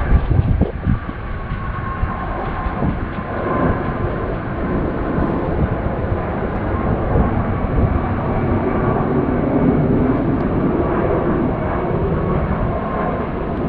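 Jet airliner engines running loud and close: a steady rumble with a faint high whine, and a few low thumps in the first second.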